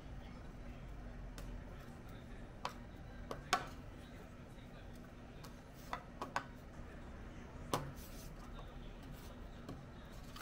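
Metal kitchen tongs clicking and tapping against a plastic tub while chicken drumsticks are rolled in flour: about seven short sharp clicks, the loudest about three and a half seconds in, over a faint steady hum.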